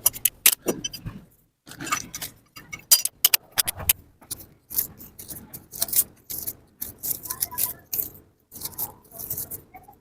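Metal tools and engine parts clinking, clattering and scraping in quick, irregular knocks during work on a small motorcycle engine, with a few abrupt breaks.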